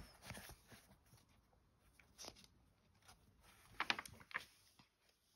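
Faint handling of a picture book, with a brief paper rustle about four seconds in as a page is turned.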